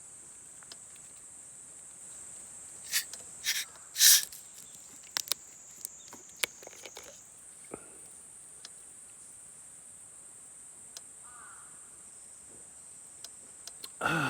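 Night insects, crickets or similar, chirring in a steady high-pitched chorus that shifts pitch slightly about halfway through. A few sharp clicks stand out about three to four seconds in, with scattered fainter ticks after them.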